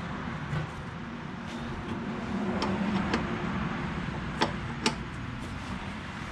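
A 19mm wrench working the engine-oil drain plug of a John Deere 755 tractor: a few short, sharp clicks of tool on the plug, the two loudest about half a second apart near the end, over a steady background hum.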